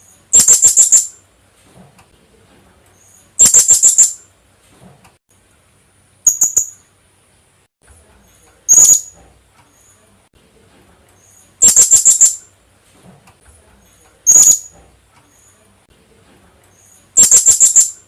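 Philippine hanging parrot (kulasisi) calling: seven loud bursts of rapid, shrill, very high-pitched notes, each under a second long, repeated every two to three seconds.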